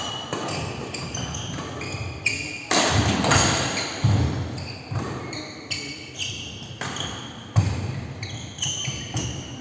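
Badminton rally: rackets strike the shuttlecock sharply about five times, every second or two, while the players' shoes squeak repeatedly on the wooden court floor.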